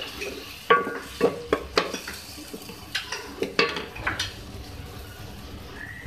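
Wooden spatula stirring and scraping against a metal pot, with a string of sharp knocks through the first four seconds, over the sizzle of onions and spices frying in oil.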